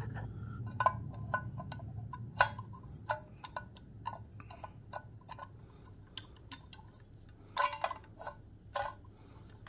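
Irregular small clicks and taps from handling a circuit board: an op-amp module being pressed down on its pin leads and a DAC's case shell being fitted over the board, with a few louder clicks near the end. A faint steady low hum underneath.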